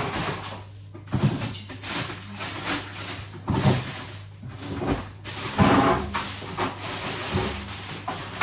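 Rummaging in a freezer: drawers and frozen packets clattering and rustling in irregular bursts, the loudest a little past halfway, over a low steady hum.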